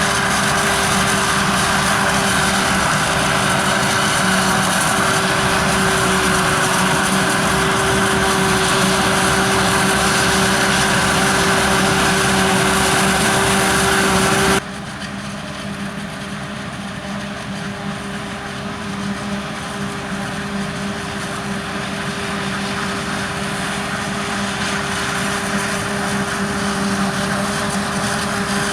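Forage-harvesting machinery working in maize: a steady heavy engine and machine drone with a constant high whine. About halfway through it drops suddenly to a quieter level, then slowly grows louder again.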